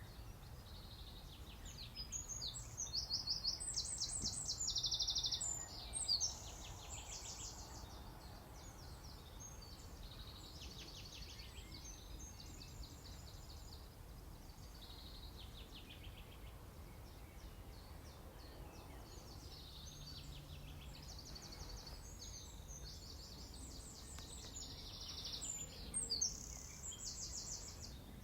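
Small songbirds singing fast, high trilling phrases over a low, steady background rumble. The song is busiest a couple of seconds in and again near the end.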